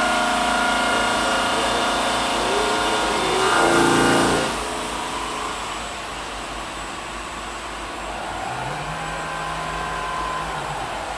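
Park Industries Saber 5-axis CNC bridge saw running, its blade motor and head drives working as it cuts a stone countertop slab under water spray. The machine noise swells briefly about four seconds in, then settles lower and steady.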